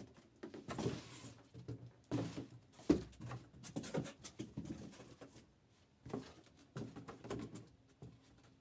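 Trading card hobby boxes and packs being handled on a table: irregular light knocks and taps with a few brief rustles, in small bursts with short pauses.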